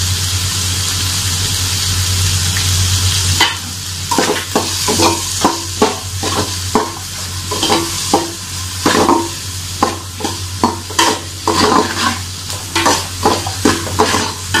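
Sliced onions sizzling in hot oil in an aluminium pot, being fried to golden brown. From about three and a half seconds in, a spatula stirs and scrapes them against the pot in quick repeated strokes, about two a second.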